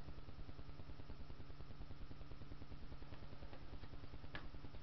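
Low steady background hum with a fast flutter, a few faint ticks, and one sharp click about four seconds in.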